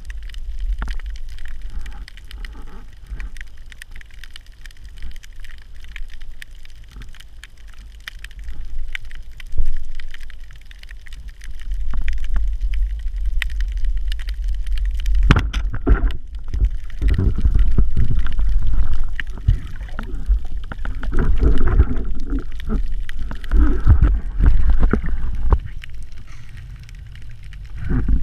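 Underwater noise picked up through a camera housing on a speargun as the diver swims: a low rumble of water moving past, with scattered clicks and knocks that grow louder and busier about halfway through.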